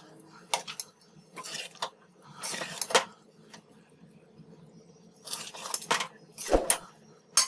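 A metal spoon stirs and turns cooked basmati rice in a steel pan, making irregular scrapes and clinks against the pan.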